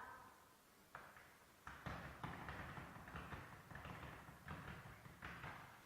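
Heartbeat sound effect: a faint run of quick, soft thumps that starts about a second in and stops shortly before the end.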